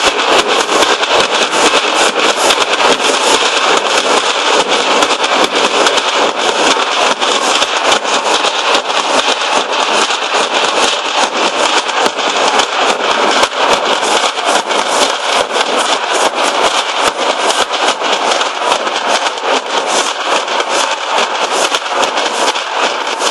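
Nashik dhol troupe drumming: many large barrel drums beaten together in a fast, dense, unbroken rhythm of sharp strokes. Loud throughout.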